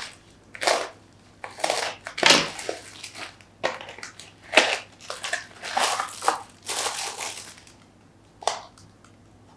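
Bubble wrap and plastic packaging crinkling and crackling as it is pulled off a wallet by hand, in a run of irregular bursts. A single short click comes near the end.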